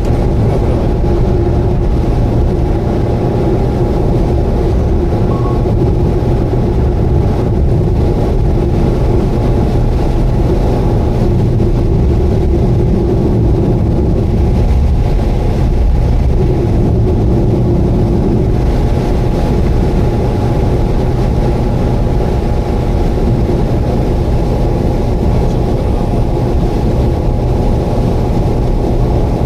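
Subaru Vivio kei car running steadily at highway speed: a continuous engine and road drone with a steady whining tone above it, unchanging throughout.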